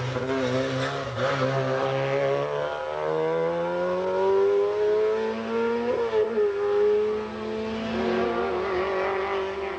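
Group A hill-climb race car's engine accelerating hard out of a hairpin. The revs climb through each gear and drop back at every upshift, most plainly about six seconds in.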